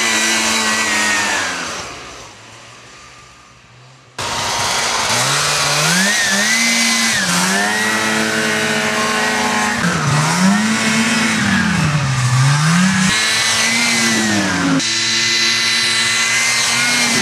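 Ski-Doo 500cc two-stroke snowmobile engine revving at speed, its pitch rising and falling as the sled accelerates, eases off and passes close by. It fades away in the first couple of seconds, then cuts back in suddenly and loud about four seconds in.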